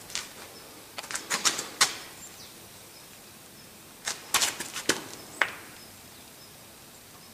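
Two short clusters of sharp clicks, a few about a second in and a few more about four seconds in, over a faint steady background hiss.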